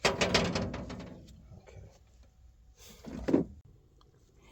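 Metal tools and parts being handled: a sudden rattling clatter of quick clicks that dies away over about a second, then a single shorter clunk with a scrape about three seconds in.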